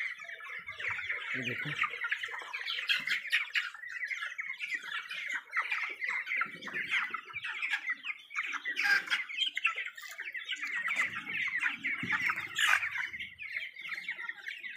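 A large flock of three-week-old broiler chickens peeping and cheeping all at once, a steady dense mass of short high calls with no pauses.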